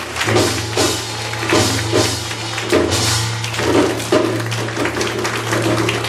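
Korean shaman-ritual (gut) percussion music: a janggu hourglass drum beating a brisk rhythm, with bright metal crashes about once a second and a steady low ringing tone held underneath.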